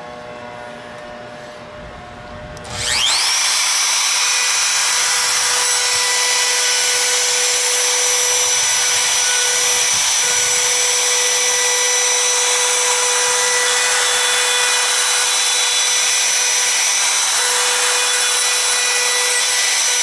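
Handheld router switched on about three seconds in, its whine rising quickly to full speed, then running steadily at a high whine while its bit routes out a door hinge mortise through the jig. A fainter steady hum comes before it starts.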